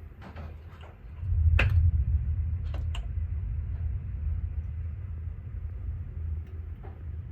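A storm with hail: scattered sharp clicks of hailstones striking hard surfaces. About a second in, a loud low rumble starts suddenly, then slowly dies away.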